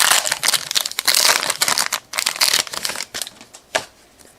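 A trading-card pack's wrapper crinkling and rustling as it is torn open, dense for about two seconds and then lighter, with the cards being handled and one sharp tick near the end.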